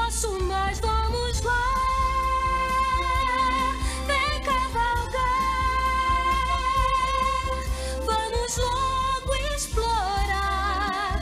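A female voice singing a song in long held notes with vibrato, over instrumental backing.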